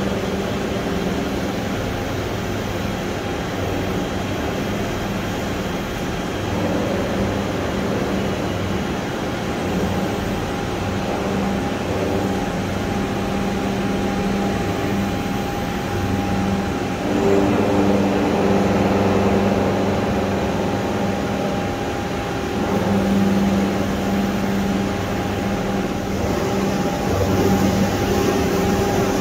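Toshiba BP-150 R22 CNC horizontal boring mill running under power: a steady mechanical hum made of several held tones. A higher tone joins about a third of the way in, and the sound swells louder a little past halfway and again near the end.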